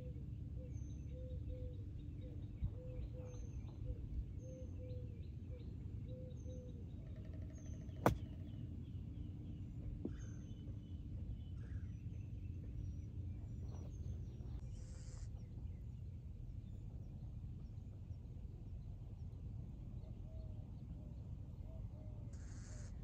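Outdoor ambience: a steady low rumble of wind, with a bird repeating a short call about twice a second and other birds chirping. A single sharp click stands out about eight seconds in.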